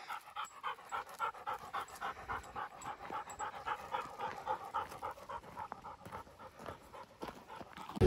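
Hunting dog panting rapidly with its tongue out, a quick even run of breaths about four to five a second: the dog is hot and tired after hunting on a very hot day.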